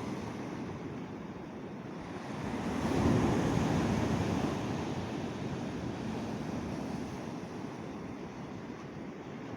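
Sea waves breaking on the shore: a wave swells up about three seconds in and washes back out slowly, over a steady wash of surf.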